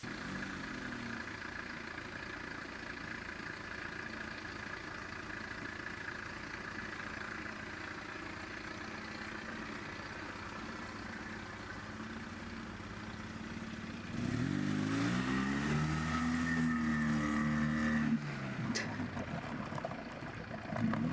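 Lada Oka's small two-cylinder engine running steadily under light throttle, then revved hard about two-thirds of the way through, its pitch rising and holding for a few seconds before dropping back, and revving up again near the end as the car pushes through rough ground.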